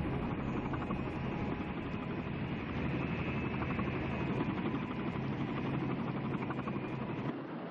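Helicopter flying overhead, its engine and rotors making a steady drone that cuts off near the end.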